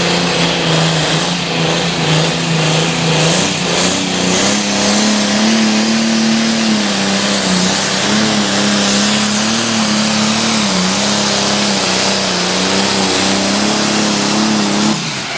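A green pulling tractor's engine running flat out at high revs during a pull down the track. Its pitch steps up about four seconds in, then wavers up and down as the load changes, and the engine stays loud throughout.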